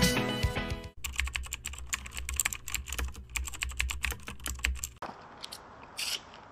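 Rapid clattering of computer keyboard typing, a sound effect to text being typed out on screen, for about four seconds after background music fades out in the first second. Then a quiet room with a brief rustle.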